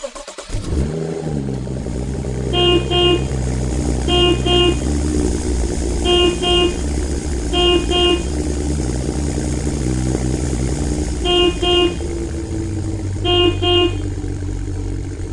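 A vehicle engine running steadily, with a horn giving short double beeps, six pairs about every one and a half to two seconds.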